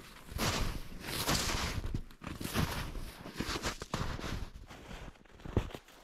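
Footsteps crunching through deep snow, about one step a second.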